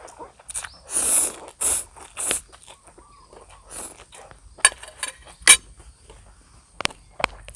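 Instant noodles slurped close to the microphone, three short slurps in a row, followed by several sharp clicks of utensils against the bowl.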